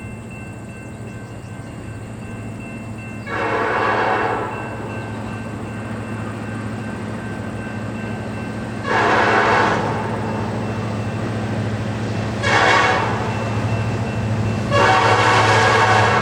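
Freight locomotive air horn sounding the grade-crossing signal: two long blasts, a short one, then a long one. Under it the diesel locomotives' steady drone grows louder as the train approaches.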